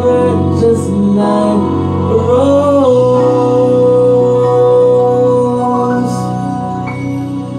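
The closing bars of a pop ballad: a male voice sings the last line and holds one long final note over sustained organ-like keyboard chords. The voice stops a few seconds before the end while the chords ring on and the music gently fades.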